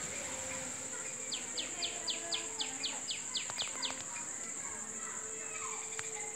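Steady high-pitched trill of night insects. About a second in comes a run of about eleven quick falling chirps from an animal, four a second, lasting about two and a half seconds.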